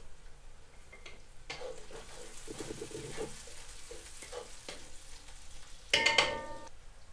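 Sliced onions sizzling as they fry in a cast-iron pot, stirred and scraped with a wooden spatula; the sizzle starts about a second and a half in. Near the end a loud metallic clank rings briefly.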